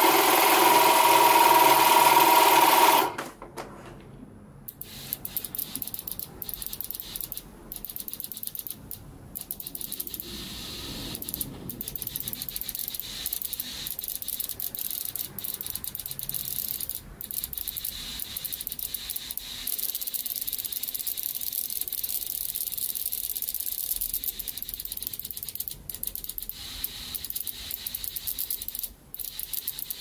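A small 12 V tyre compressor runs loudly for about three seconds, pressurising a bench-mounted fuel rail. Then BMW M54 fuel injectors click rapidly and evenly as they are pulsed, spraying fuel-injector cleaner into a container with a fine hiss.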